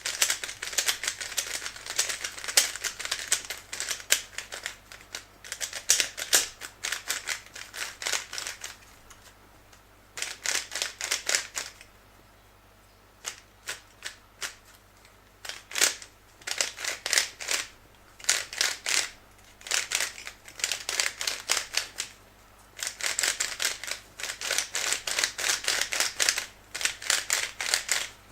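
DaYan speed cube being turned fast by hand: runs of rapid plastic clicking and clacking as the layers turn, broken by short pauses. The cube is freshly lubricated with silicone, with its spring tension loosened, and is being turned to work the lube in.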